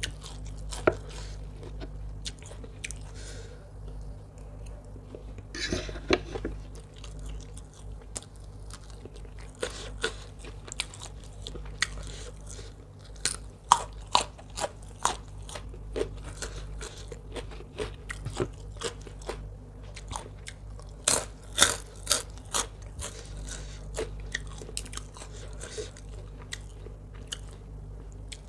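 A person chewing a spicy rice-noodle salad and crunching raw vegetables, with many sharp, crisp bite and crunch clicks coming at irregular intervals.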